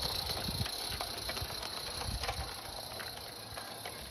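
Wheels of a small-scale garden-railway train clicking over the rail joints as the last wagons roll past and draw away. The clicks come irregularly, a few a second, and fade with the overall sound.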